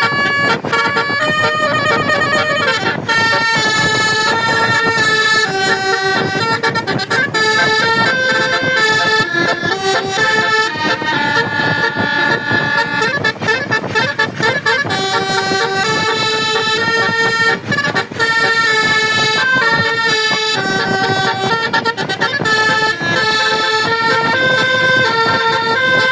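Basuri multi-tone bus air horn playing a tune: a reedy run of held notes, each lasting about half a second to a second and stepping from one pitch to the next.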